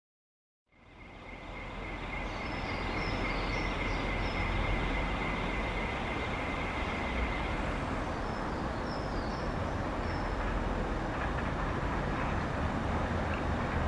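LMS Black 5 steam locomotive approaching slowly with its support coach: a steady low rumble, with a thin high squeal lasting the first several seconds and short high chirps twice.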